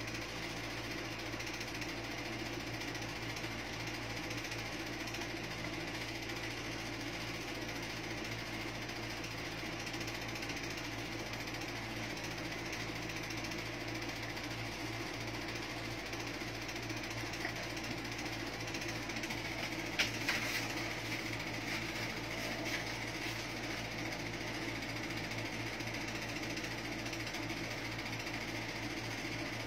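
Steady mechanical hum with a hiss behind it, with a single short click about twenty seconds in.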